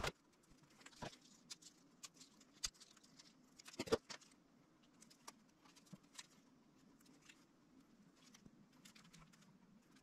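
Faint handling noises: scattered light clicks and rustles as small strips of adhesive-backed weather-stripping foam are peeled and pressed over a bike frame's mounting-bolt lugs. The sharpest click comes about four seconds in.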